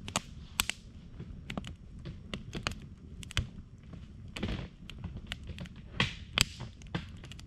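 Wood campfire crackling in a steel fire ring: irregular sharp pops and snaps over a low steady rumble of the flames, with the loudest pops near the start and about six seconds in.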